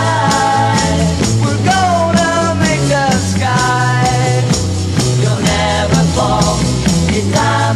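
Rock music with a steady drum beat and a moving bass line, laid over the ride as a soundtrack.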